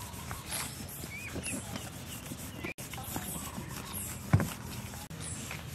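Fresh banana leaves rustling and being stacked on a wooden board as they are shaped into rounds, with light repeated taps and one louder knock on the board about four seconds in.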